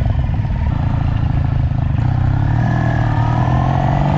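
Kawasaki W800's air-cooled parallel-twin engine pulling away from a standstill, its beat coming through plainly at first, then the engine note rising steadily as the bike accelerates through the second half.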